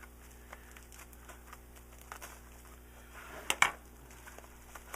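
Scissors cutting packing tape on a wrapped parcel: soft scattered crinkles and clicks of the wrapping being handled, then a brief, louder rip of tape about three and a half seconds in.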